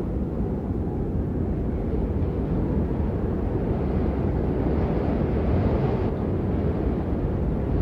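A steady low rumble of noise, with a fainter hiss swelling up about four seconds in and again near the end.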